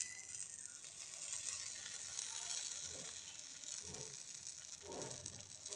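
Butter sizzling steadily in a hot stovetop sandwich maker as the bread is laid in, with a few soft knocks from handling the pan.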